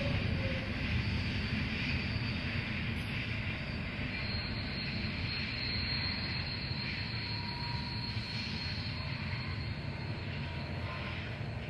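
Steady low rumble of a long freight train's wagons rolling along the track, slowly fading as the train draws away.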